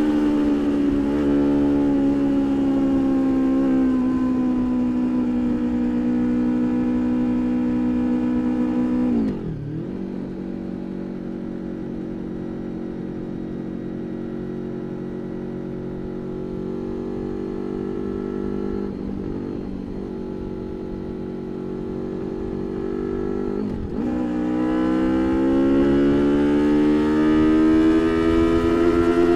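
V4 engine of a straight-piped 1999 Honda VFR800 under way, with a steady exhaust note. About a third of the way in the revs dip sharply and it carries on quieter and steady. Near the end there is another brief dip, then the revs climb as the bike accelerates.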